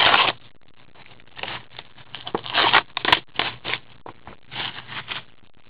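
Gloved hands handling a sealed trading-card box: plastic wrapping and cardboard rustling and scraping in short, irregular bursts, the loudest right at the start and a cluster about two and a half to three seconds in.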